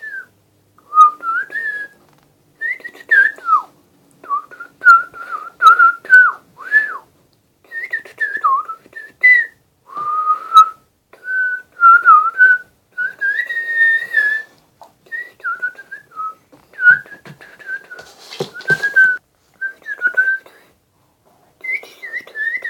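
A person whistling a tune by mouth in short phrases, the pitch sliding up and down, with brief pauses between phrases.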